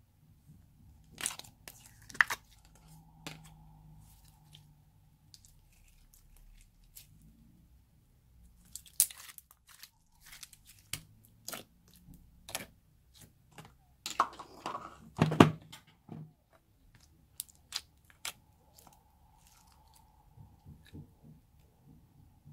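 Hands squishing and pressing glossy slime, making scattered sticky clicks and crackling pops, with a denser run of louder pops about two-thirds of the way through.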